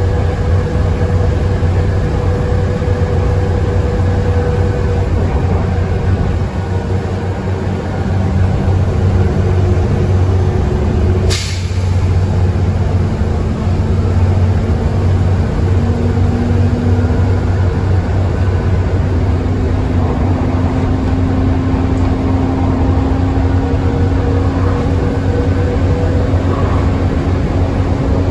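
Volvo B7TL double-decker bus's Volvo D7C six-cylinder diesel engine thrashing hard under load, heard from inside the bus at speed: a steady low drone with a whine that climbs slowly in pitch in the second half. A brief sharp hiss of air about eleven seconds in.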